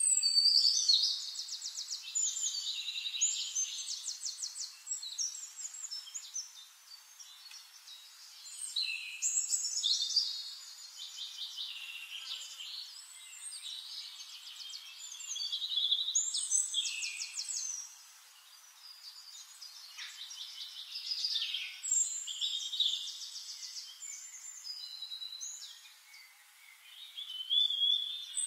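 A songbird singing high, fast trills and chirps, in phrases a few seconds long with short pauses between them.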